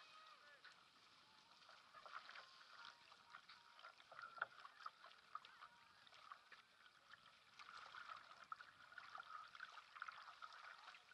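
Faint splashing and gurgling of a sprint kayak's paddle blades entering the water and of water running along the hull, with one sharper splash about four seconds in.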